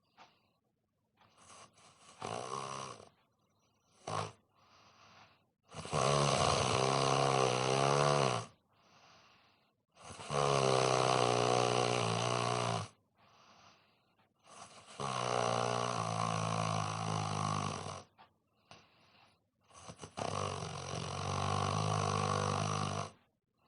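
A man snoring in deep sleep: four long, loud snores about five seconds apart, each lasting two to three seconds, with softer breaths between them.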